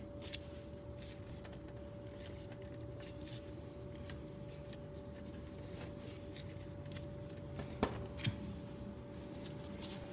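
Scattered faint clicks and light metallic taps from hands working the wire connectors on an AC capacitor's terminals, checking that they are tight. A sharper click comes about eight seconds in.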